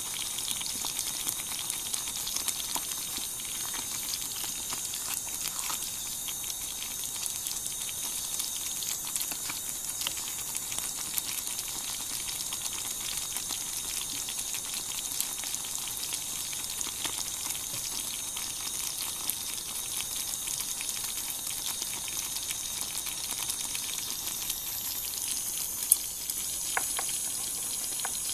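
Thick beef stew simmering in a small cast-iron cocotte: a steady hiss dotted with many small irregular pops. One sharp knock sounds near the end.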